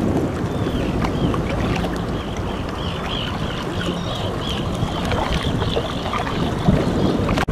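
Wind rumbling on the microphone over choppy water, with a quick run of high, repeated chirps in the middle and a single knock near the end.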